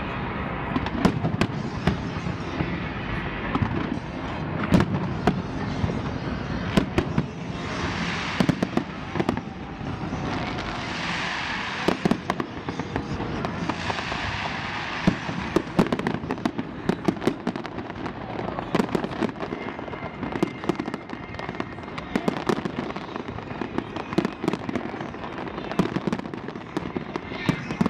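Fireworks going off: many sharp bangs and pops throughout, with a few longer stretches of crackling hiss in the middle.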